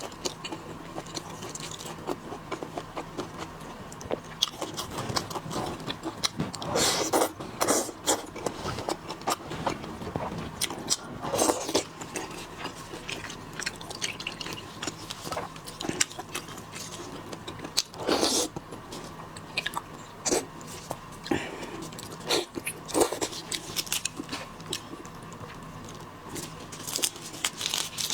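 Close-up sounds of a person eating seafood: wet chewing and biting with many crisp clicks and crunches, and several louder cracks.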